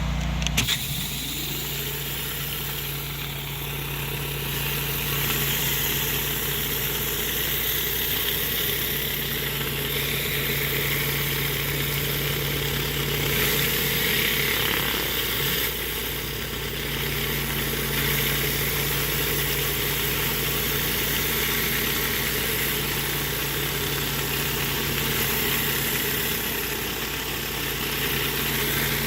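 Gas-engine pressure washer running steadily at high speed, with the hiss of the water spray. A low tone rises in pitch in the first second, then the engine holds steady.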